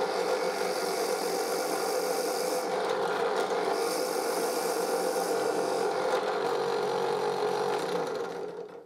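Drill press running steadily while its bit bores a shallow dowel hole into a wooden workpiece, the descent halted by a wooden sleeve on the bit acting as a depth stop. The motor winds down and stops near the end.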